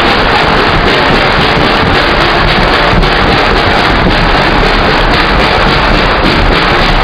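Steady loud rumble and rattle of an open-sided excursion-train passenger car rolling along the track, with wind buffeting the microphone and music underneath.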